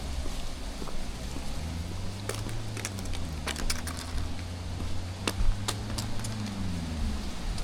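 Footsteps crunching through dry fallen leaves, sharp crackles standing out between about 2 and 6 seconds in. Under them a low engine hum swells and fades as a vehicle passes.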